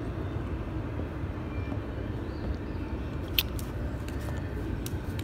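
Steady low outdoor rumble with a single sharp click about three and a half seconds in.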